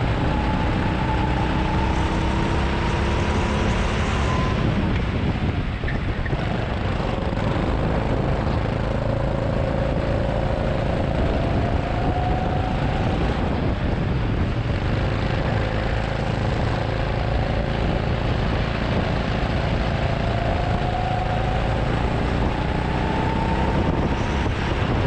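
Go-kart engine heard from on board the kart, its pitch climbing steadily along each straight and falling back for the corners, three times over, under a constant rushing noise.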